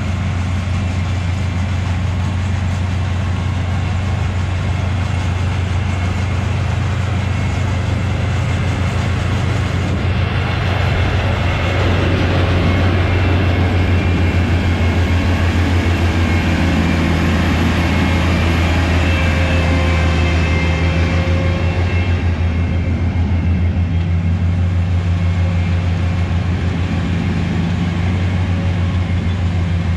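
Oxbo 8430 self-propelled ear corn picker running steadily in the field, a deep engine drone that grows louder about ten seconds in.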